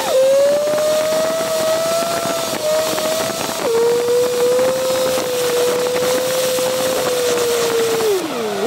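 A Fiat car's engine and drivetrain running at speed, heard from under the car with road and wind noise; the pitch holds steady, steps down abruptly about a third of the way in, then falls away near the end and starts to climb again.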